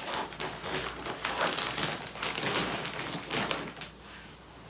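Rustling and crinkling of baby clothes and a sock being handled and packed together, in irregular bursts that die down after about three and a half seconds.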